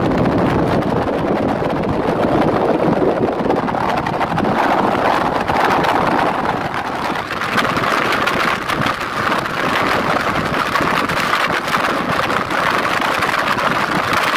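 Wind rushing over the microphone and road noise from a vehicle driving along a road at speed. The rush turns brighter about halfway through.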